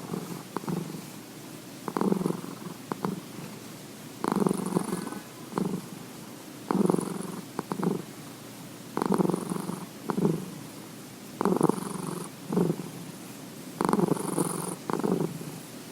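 Domestic cat purring heavily, a steady rumble that swells into a louder surge with each breath about every two and a half seconds.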